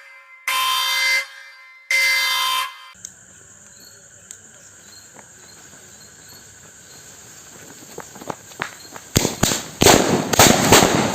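Two short horn-like beeps, then a low hiss. About nine seconds in, firecrackers start bursting in a rapid string of sharp bangs.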